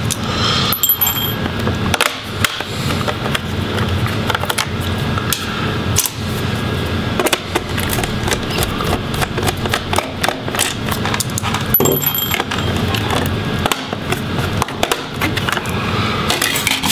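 Small screws being backed out of a laptop's plastic bottom access cover with a Phillips screwdriver, the cover then being lifted off. Many light clicks and metallic rattles of the screwdriver bit, loose screws and plastic are heard throughout, over a steady low hum.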